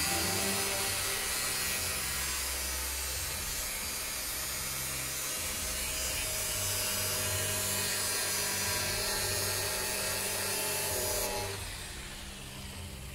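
Angle grinder cutting into the metal of a padlock: a steady, loud grinding whine. It stops about eleven seconds in as the disc is lifted off.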